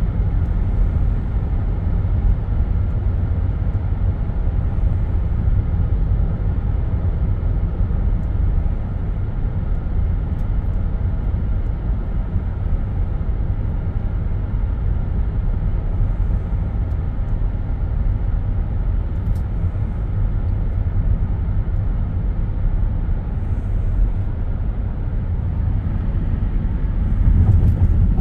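Steady low rumble of road and engine noise inside a moving car's cabin, swelling briefly near the end.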